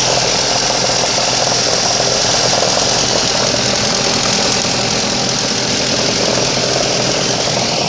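Ford Mondeo Mk4 engine running steadily with an extraneous noise, which the owner suspects may come from the flywheel.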